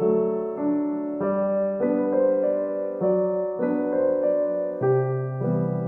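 Background piano music, a slow chordal melody with notes changing about once or twice a second.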